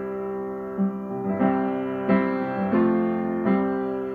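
Upright piano playing an instrumental passage: about five chords struck in a steady rhythm, each left ringing into the next.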